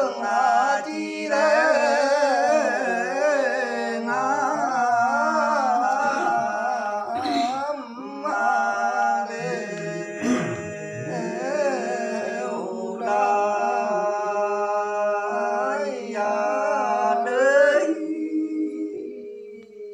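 Male voice singing a hà lều folk song unaccompanied, in long, wavering, ornamented phrases. It breaks off briefly about 8 and 13 seconds in and stops a couple of seconds before the end.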